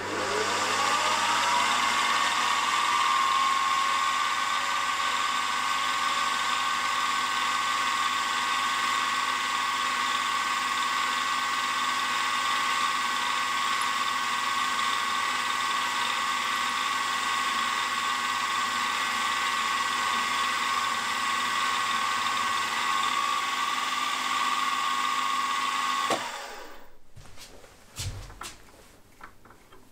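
Milling machine spindle spinning up with a rising whine, then running steadily as a tapping drill bores into an aluminium conrod bar. It cuts off about 26 seconds in, and a few light clicks follow.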